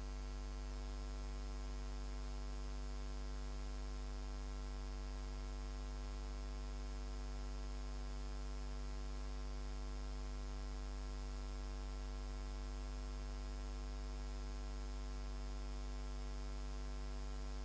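Steady electrical mains hum in the sound system: a low, unchanging buzz with a stack of evenly spaced overtones and faint hiss.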